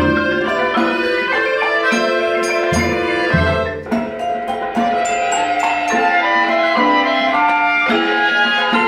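Small chamber ensemble of woodwinds, accordion and marimba playing a folk-song arrangement, with a brief quieter passage about four seconds in.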